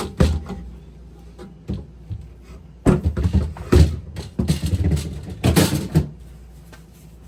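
Plastic refrigerator shelves and drawers being fitted into the fridge: a sharp knock at the start, then a busy run of clunks and scraping from about three to six seconds in.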